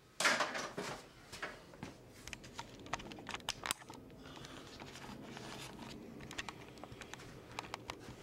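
Handling noise from a handheld camera being picked up and carried: a loud rustle just after the start, then scattered light clicks and knocks.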